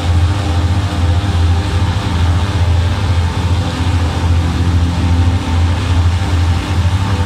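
Piston engines of several small aerobatic propeller planes running on the ground together, a loud, steady low drone.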